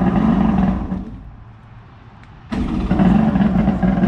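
Two-stroke, three-cylinder jet boat engine revved in two bursts: about a second of throttle at the start, a drop back to a lower run, then a longer rev from about two and a half seconds in.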